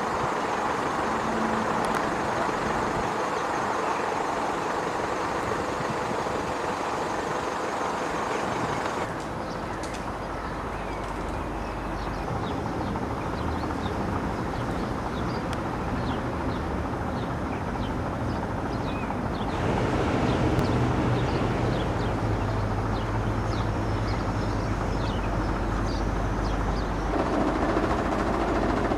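Steady distant road-traffic rumble with small birds chirping over it. The background shifts abruptly about nine and twenty seconds in.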